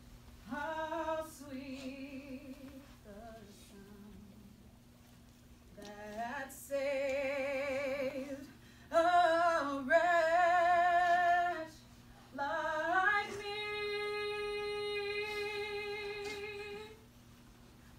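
A woman singing solo in slow phrases with wide vibrato, with short breaks between them, ending on a long held note of about four seconds near the end.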